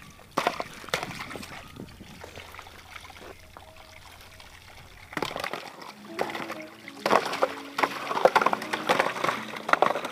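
Borewell water gushing from a pipe and splashing, carrying lumps of ice that the pump's pressure pushes out of the frozen pipe. It runs quietly over a low hum at first, then louder and more broken up in the second half.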